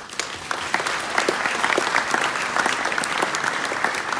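Audience applauding, the clapping swelling over the first half second and then holding steady.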